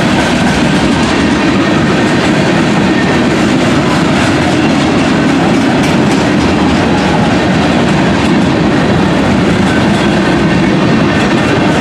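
Freight cars of a long train rolling past: a loud, steady rumble of steel wheels on rail, with light clicking as the wheels cross rail joints.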